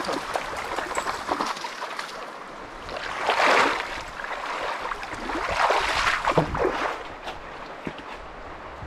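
Water splashing and sloshing as legs wade through a shallow stream, with two louder surges of splashing about three and six seconds in, and quieter trickling water after.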